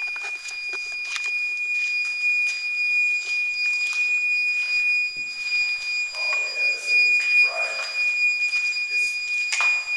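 Electronic detector's alarm sounding one continuous high-pitched tone, set off by a person moving through the doorway, with faint shuffling and knocks around it.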